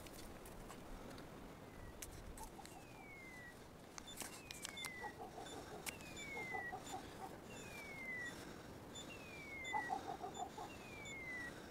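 A hunting dog's beeper collar sounding its point signal: a short falling electronic whistle repeated at even intervals about every second and a half, starting about two seconds in. Bursts of quick clucking notes come between the whistles.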